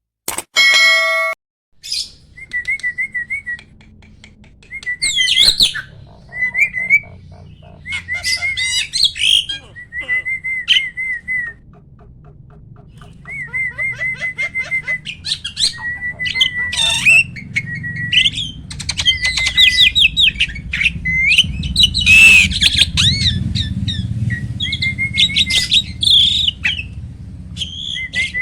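A hybrid jalak (starling) singing: repeated warbled whistles with chattering and squawking calls between them, loudest and busiest in the second half. A short buzzy tone sounds just before the song begins, and a low steady hum runs underneath.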